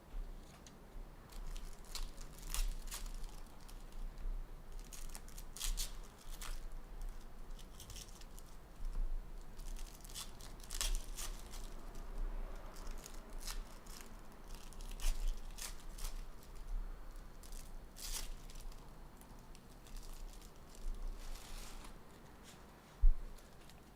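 Foil trading card pack wrappers being torn open and crinkled, with cards shuffled and handled in short crackly bursts throughout. A single sharp thump just before the end.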